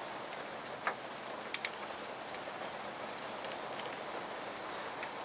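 Steady background hiss with a few light, sparse metallic clicks from a wrench tightening the rear brake caliper bracket bolts.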